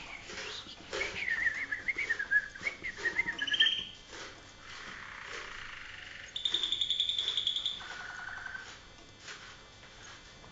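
Malinois (Waterslager) song canary singing: a run of rapid, wavering trills, then about six seconds in a fast, high rolling trill followed by a short, lower one.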